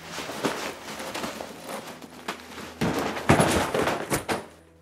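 A pile of hardcover books and notebooks dropped onto the floor, landing as a quick run of thuds and slaps. The clatter is heaviest about three to four seconds in, as the bulk of the pile hits.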